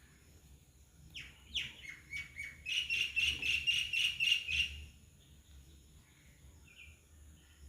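A bird calling: a few quick falling notes, then a rapid run of repeated high chirps, about five a second, that stops about five seconds in.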